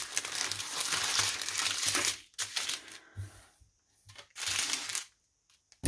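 Small clear plastic bags of diamond painting drills crinkling and rustling as they are handled and shifted around. The rustling is steady for about two seconds, then comes in a few shorter bursts with quiet gaps between.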